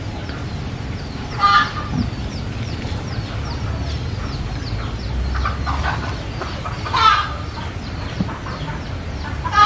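Chickens clucking, with three louder calls: about a second and a half in, about seven seconds in, and near the end. Underneath runs a steady series of short high chirps, a few a second, and a low hum.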